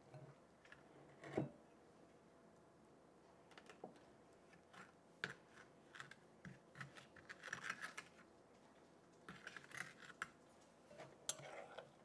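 Faint, scattered clicks and scrapes of a metal spoon against a glass mixing bowl and a plastic ice cube tray, as a wet paste is scooped out and pressed into the tray.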